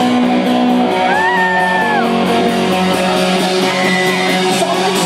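Live rock band playing loud, with electric guitar, drums and a held vocal line soaring over it about a second in.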